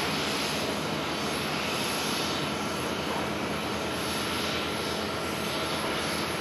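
Rolls-Royce Trent 1000 turbofans of a Boeing 787-8 at takeoff thrust as it climbs out: a steady jet rush with a faint high whine running through it.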